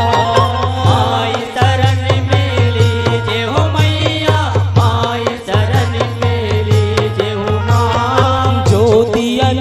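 Live Indian devotional bhajan music: dholak and mandar hand drums keep a steady beat under a bending melody line.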